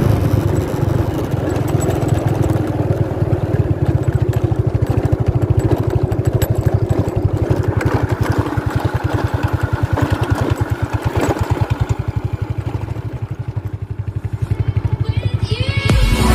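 An engine running with a steady, pulsing beat; the beat slows and grows quieter a few seconds before the end.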